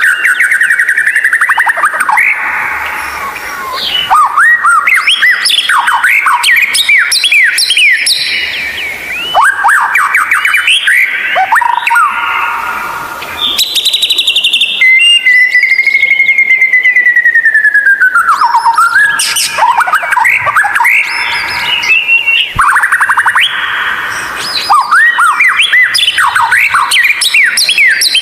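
White-rumped shama (murai batu) singing loudly: a fast, varied run of rising and falling whistled notes, chattering trills and rattles in phrases broken by short pauses, with one long, drawn-out whistle about midway that slides downward at its end.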